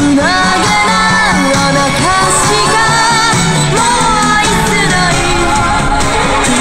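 Pop song playing: a lead voice sings held, wavering notes over a full band backing.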